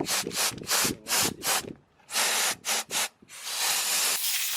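Compressed air from an air compressor's blow gun hissing in many short, rapid puffs, then a longer steady blast near the end, as dust is blown out of a computer card.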